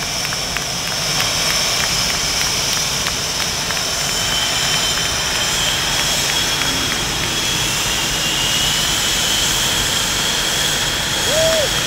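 Blue Angels F/A-18 Hornet jet engines running: a steady rush with a high whine, one tone of which slowly climbs in pitch from about four seconds in.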